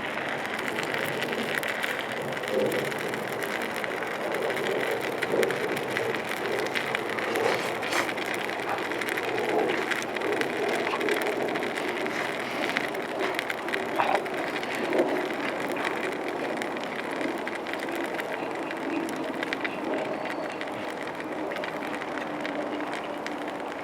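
Food sizzling in a pan over a campfire: a steady frying hiss with scattered small pops and crackles.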